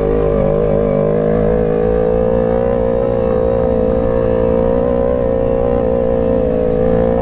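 Sport motorcycle engine running at steady revs as the bike is ridden along a rough dirt trail, its pitch wavering slightly.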